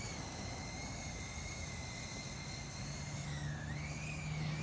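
FPV drone's motors and propellers whining steadily at high pitch; the pitch dips and climbs again about three and a half seconds in as the throttle changes.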